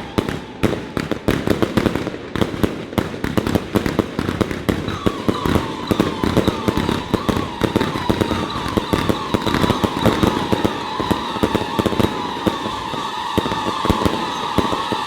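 A long string of firecrackers going off in a continuous rapid crackle of bangs, with a wavering high whistling tone rising over it from about a third of the way in.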